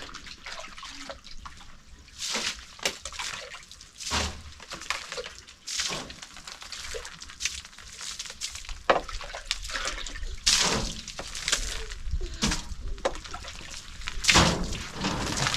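Water splashing in a series of irregular surges, as if poured or thrown out a scoopful at a time.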